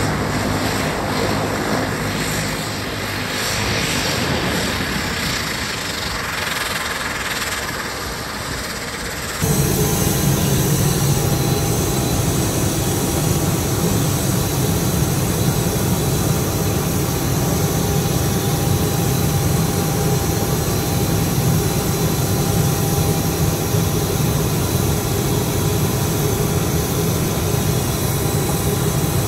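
Turboprop engines of a DHC-8 Q300 (Dash 8) running as it taxis. About a third of the way in the sound cuts to a louder, steady drone with a strong low hum and a few held tones.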